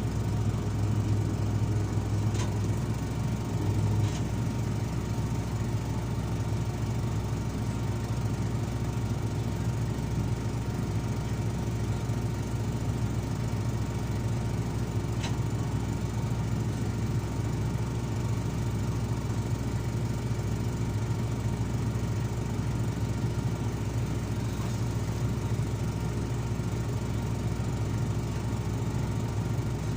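Heavy diesel engine running steadily with a deep hum, a little louder for the first few seconds, with a few faint sharp clicks.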